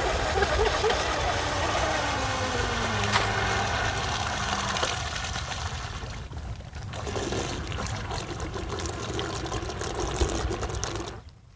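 Stock 2000kv brushless motor of an RC catamaran speedboat whining as the boat runs, its pitch falling as the boat slows. The motor then hums more quietly as the boat comes in close on low throttle.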